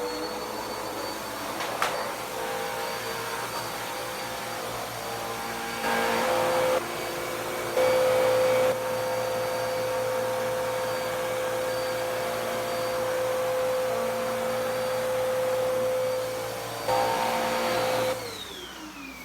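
Dirt Devil PowerMax Pet upright vacuum running steadily, its pitch and loudness jumping up briefly three times. Near the end it is switched off and the motor winds down with a falling whine.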